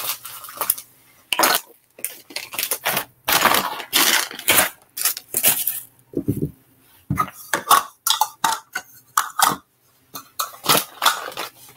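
Kitchen clatter: dishes and utensils being handled and set down on a counter, a string of irregular clacks, knocks and clinks.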